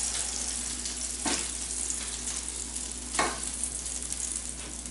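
Slices of beef tongue sizzling as they pan-fry in butter in a skillet. Two sharp clicks of a metal utensil against the pan come about a second in and again after three seconds, as pieces are turned and lifted out.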